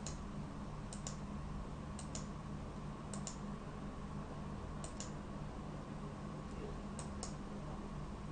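Computer mouse clicking about six times, each click a quick double tick as the button goes down and up, over a faint steady low hum.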